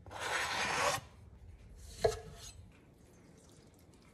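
Knife blade scraping diced jalapeños across a plastic cutting board into a bowl, a rasping slide of about a second. A single knock follows about two seconds in.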